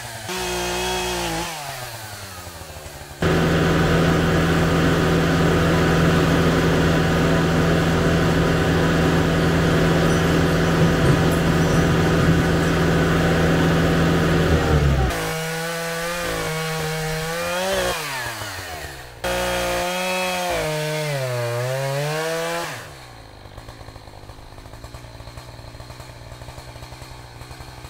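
Echo CS590 chainsaw running in a string of short clips: revving up and down, then a long stretch held steady at full throttle, then more rising and falling revs before it drops away near the end.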